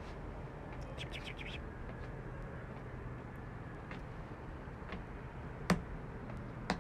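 A quick run of bird chirps about a second in, over a steady low hum, with two sharp taps near the end.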